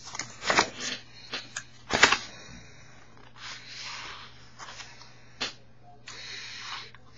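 Paper and card handled close to the microphone: sharp rustles and knocks, the loudest about half a second and two seconds in, then a couple of short, soft hissy sounds over a faint steady low hum.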